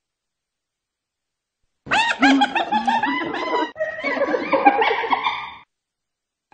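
Spotted hyena giggling: a rapid run of short, high, rising-and-falling yelping notes. It starts about two seconds in, breaks briefly midway, and lasts nearly four seconds.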